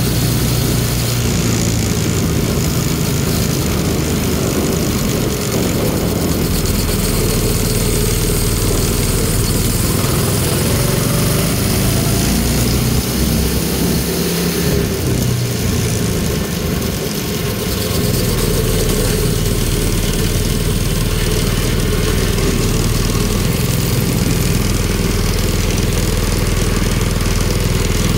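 Mini NASCAR-style go-kart's small engine running as the kart drives along, its note rising and falling as the speed changes.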